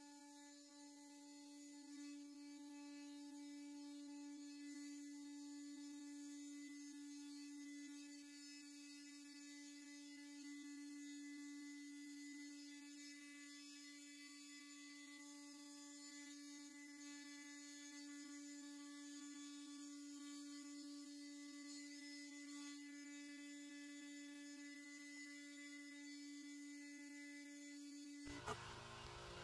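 Faint, steady hum at one constant pitch with overtones, cutting off abruptly near the end.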